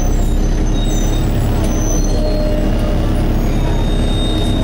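Engine cooling fan of a Volvo B7TL double-decker bus running with a steady hoovering drone over the engine's low rumble, heard from inside the bus. The uploader describes it as random fan wailing, a fault that keeps the fan running whether or not the engine is hot.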